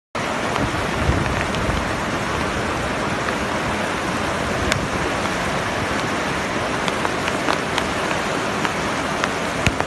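Flash floodwater rushing fast across the ground: a loud, steady rushing noise with scattered small clicks through it.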